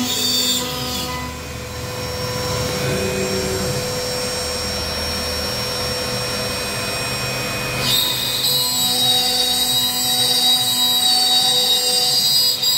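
Strom Technologies MKN 1630 CNC router's spindle running steadily with a high whine while its bit cuts a pattern into a wooden sheet. About eight seconds in, a louder, hissing high-pitched cutting noise sets in and holds.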